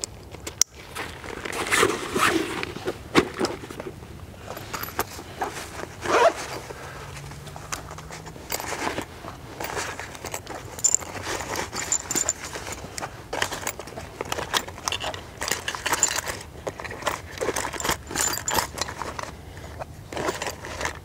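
Bushcraft kit being packed by hand into small nylon and canvas pouches: irregular rustling and scraping of the fabric, small metal items clinking together, and a pouch zip being worked.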